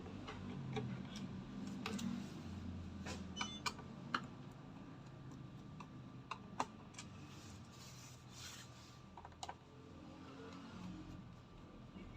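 Scattered light clicks and taps of small screws and the plastic laptop case being handled, a cluster of them in the first half and a couple of single ones later.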